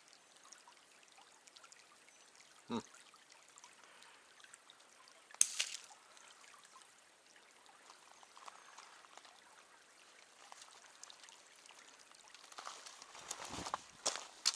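Shallow creek water trickling faintly. A sharp knock comes about five seconds in, and scuffing noises start near the end.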